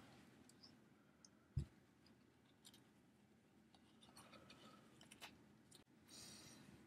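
Near silence with faint handling noises from a plush toy and its paper tag: a soft thump about one and a half seconds in, a few light clicks, and a brief faint rustle near the end.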